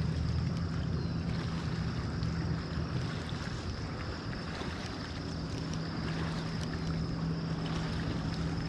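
Wind noise on the microphone over a steady low engine hum that fades a little midway and then returns.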